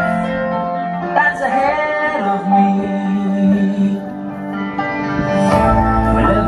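Show soundtrack music with singing, playing over a water and laser show. It has held tones, and a deep bass comes in about five and a half seconds in.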